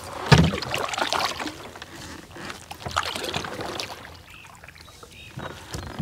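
Kayak paddle strokes splashing and dripping in the water, about one every three seconds, the first starting with a low thump.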